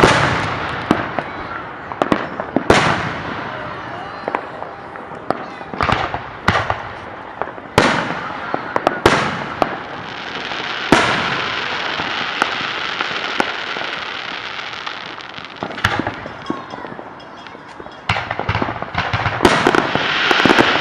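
Aerial fireworks going off: a series of sharp bangs, each trailing off in an echo. A sustained hiss runs from about halfway through, and a rapid run of pops comes near the end.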